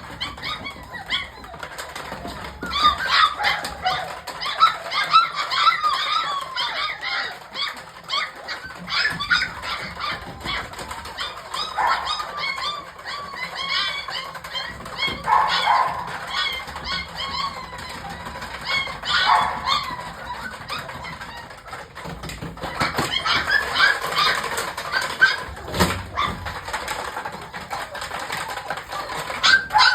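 A litter of puppies whining and squealing: many short, high squeaks overlap in clusters that come and go.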